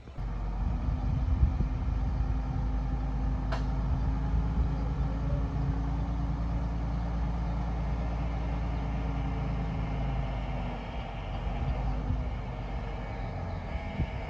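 Diesel engine of a heavy earthmoving machine running steadily, its note shifting slightly about ten seconds in. A single sharp click about three and a half seconds in.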